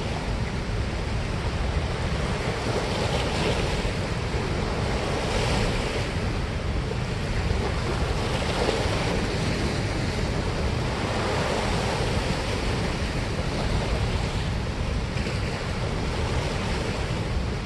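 Turbulent white water rushing below a dam spillway: a steady, even rush of water with no breaks, with wind buffeting the microphone.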